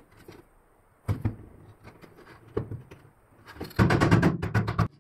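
Wooden mallet tapping glued wooden dowels into plywood brackets: a few separate knocks, then a fast run of taps near the end that cuts off abruptly.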